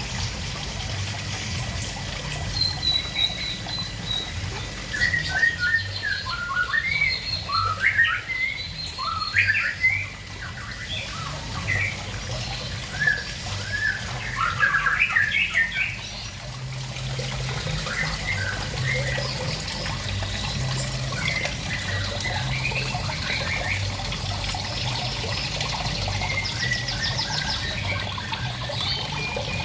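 Small birds chirping and calling in quick runs of short notes, busiest between about five and sixteen seconds in, over the steady trickle of water running into a small garden pond.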